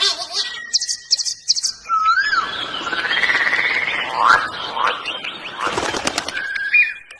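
Birds calling: short high trills, then whistled calls that slide up and down in pitch over a dense rushing noise through the middle, and one more whistle near the end.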